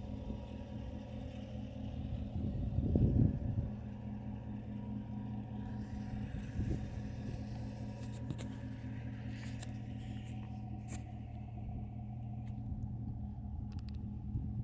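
Chevrolet Silverado pickup's engine idling steadily, a low even hum, with a brief louder rumble about three seconds in and a few faint clicks near the middle.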